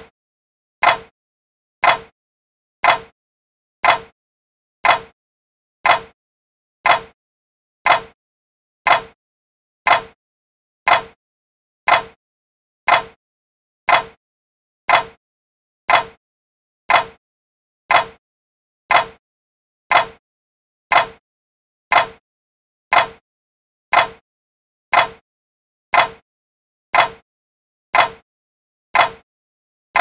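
A clock ticking steadily, one sharp tick about every second, with silence between ticks.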